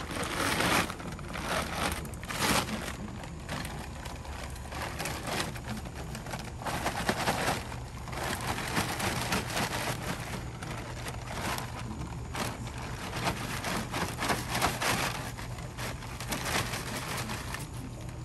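Sand being scooped and poured into a seed bag used as a sandbag: a gritty, irregular crackling with louder clusters every few seconds.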